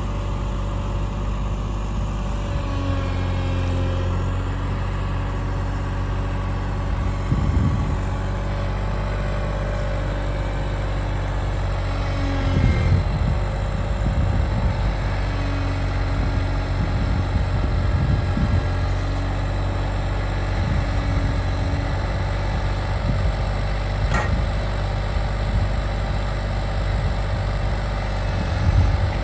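Cat 303.5 mini excavator's diesel engine running steadily, with a higher tone that rises and drops away several times as the machine works, and a few short knocks.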